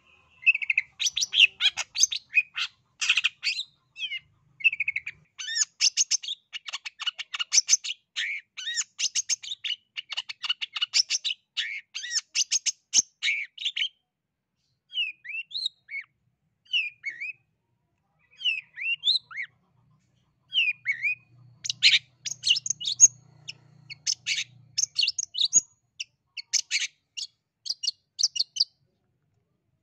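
Long-tailed shrike (cendet) in full song, gacor: a fast, chattering stream of high notes. About halfway through the song thins to scattered single calls for several seconds, then the rapid chatter resumes.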